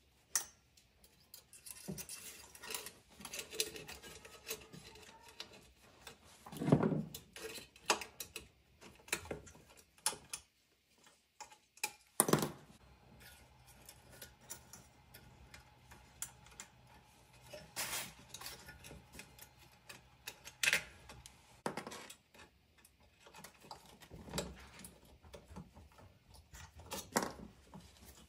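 Irregular clicks, taps and knocks of hands working at a portable generator's alternator end, handling its wires, terminals and connectors against the metal housing. There are a few sharper knocks among them.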